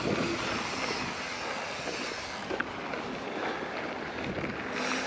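Steady wind noise on the microphone with a rushing rumble, the kind heard while riding a mountain bike along a trail, with a couple of faint clicks.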